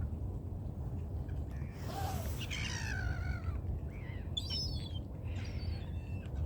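Waterbirds calling: a handful of short calls that fall in pitch, a few more higher calls a little later, over a steady low rumble.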